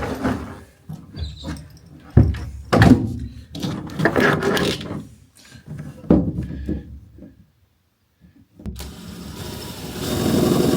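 Power drill running in several short, uneven bursts, then, after a brief pause, a longer steady run that grows louder near the end, as holes are drilled to bolt the air compressor in place.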